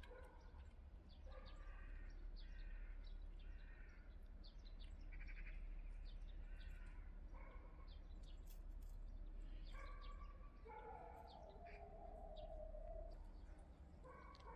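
Hens calling, a string of short pitched calls with one longer drawn-out call about two thirds of the way through, while small birds chirp faintly.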